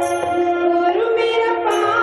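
Music: a song sung in long held notes, the melody stepping up in pitch about a second in.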